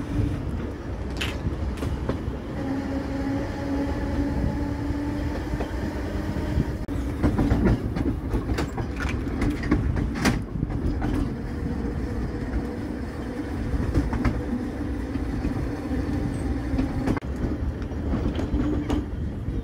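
Electric tram of the Seaton Tramway running along its track, heard from on board. There is a steady low rumble and a motor hum with a faint whine that rises slightly as it gathers speed. The wheels clack over the rail joints, most densely in the middle of the stretch.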